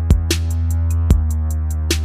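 Background music: an electronic beat with deep sustained bass, a quick steady hi-hat and regular kick and snare hits.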